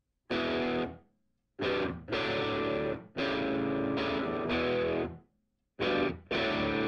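Background music: distorted electric guitar chords in stop-start bursts, each cut off sharply, with short gaps of silence between them.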